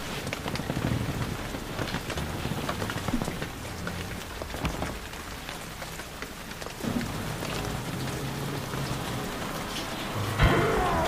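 Crackling hiss and scattered clicks of a vinyl record's surface noise on a turntable, over a low uneven rumble. Near the end music starts up.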